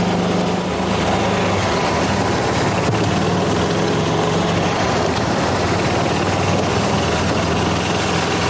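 Gas-powered golf cart's small engine running at a steady speed while the cart is driven, a constant low drone with road noise.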